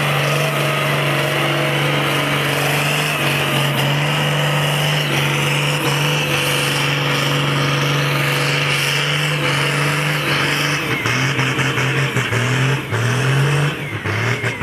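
A tractor's diesel engine working hard under full load as it drags a weight-transfer pulling sledge. It runs at a steady note for most of the time, then in the last few seconds the pitch rises and falls unevenly as the load builds.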